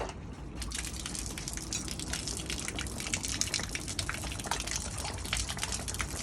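Water gushing and splashing, starting a little over half a second in and running on steadily.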